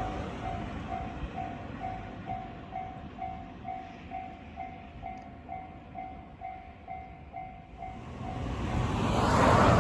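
Electronic level-crossing bell dinging steadily, about two dings a second, while the noise of a passing train dies away. Near the end a second electric train approaches and grows loud, drowning out the bell.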